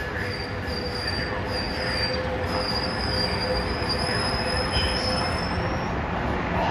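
Amtrak Pacific Surfliner bilevel passenger cars rolling slowly past, their steel wheels giving a high, steady squeal on the rails that rises slightly in pitch about five seconds in, over the running rumble of the train.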